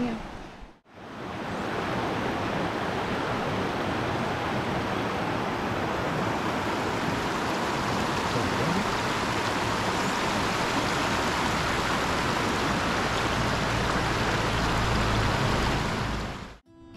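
Rushing river water, a steady, even rush, broken by a brief gap about a second in.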